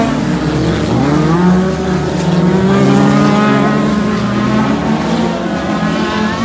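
Several race car engines revving at once as cars race around a dirt track, their pitches rising and falling and overlapping.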